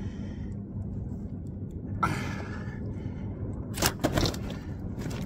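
A lively carp thrashing while being held, with a rustle about two seconds in and a few sharp slaps about four seconds in, over a steady low rumble.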